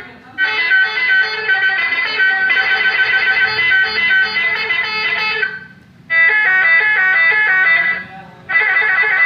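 Electronic telolet horn module playing its tune through a toa horn loudspeaker: quick stepped melodic notes in three bursts, the first about five seconds long, then two shorter ones.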